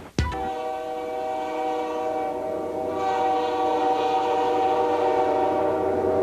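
A CN diesel locomotive's multi-note air horn sounds one long, steady blast that grows slowly louder as the engine approaches.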